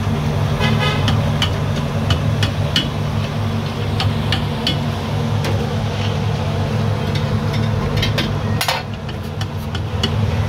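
Metal utensils clinking and knocking against cookware in sharp, irregular strikes, over a steady low hum like an idling engine.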